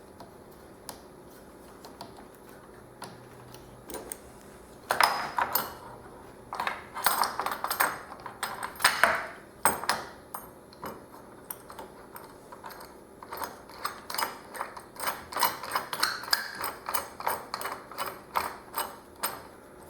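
Metal parts of a homemade panel saw and router carriage being handled and adjusted: irregular clinks, knocks and rattles that start about five seconds in and come thick and fast, two or three a second, in the second half.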